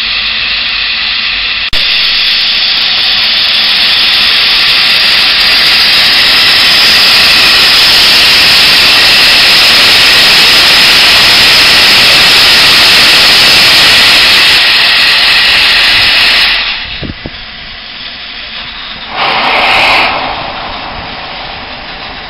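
Double Fairlie steam locomotive No 10 Merddin Emrys venting steam with a loud, steady hiss that starts abruptly about two seconds in and cuts off about sixteen seconds in. A shorter burst of hiss comes about three seconds later.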